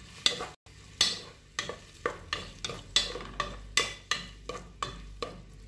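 A wooden spoon stirring chopped onion in a stainless steel pot, scraping and knocking against the pot about three times a second. The onion fries in oil underneath.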